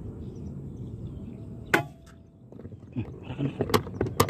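A single air-rifle shot about two seconds in, a sharp crack with a brief ring after it, followed by a run of irregular clicks and knocks.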